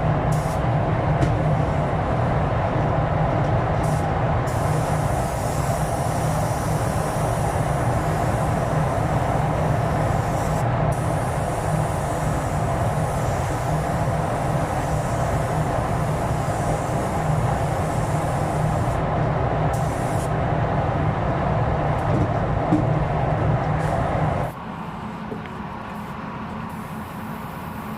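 Steady rumble and air hiss of paint-shop spray equipment running, an air spray gun and its air supply, with the high hiss briefly dropping out several times. The whole sound falls much quieter about 24 seconds in.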